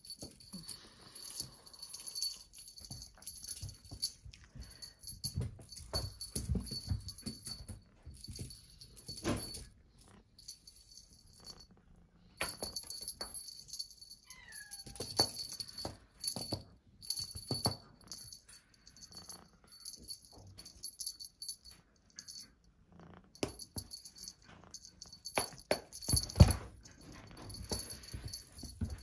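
Persian kitten playing with a feather wand toy: irregular rustling and soft thumps of paws and body on a fluffy blanket, with a high jingle coming and going as the toy is shaken.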